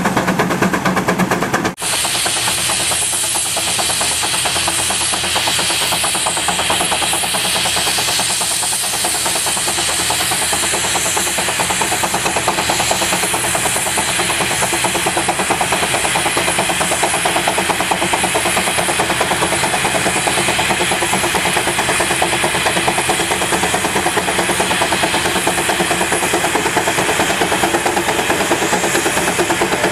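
Steam traction engine working under load as it pulls a plow: a steady, rapid beat of exhaust from its stack with a hiss of steam.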